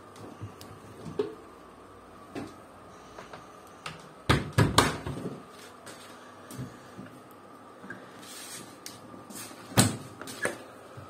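Clunks and knocks from handling front-loading washing machines' porthole doors while laundry is stuffed into the drum, with the loudest cluster of knocks about four to five seconds in and a single sharp knock near the end.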